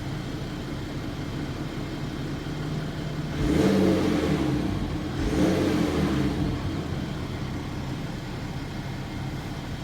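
BMW N57D30 3.0-litre straight-six turbodiesel idling, then blipped up in revs twice, about three and a half and five seconds in, each time dropping back to idle. The owner hears a tapping, misfire-like sound from it when it is held up in revs, which he thinks may be normal for this engine, just louder.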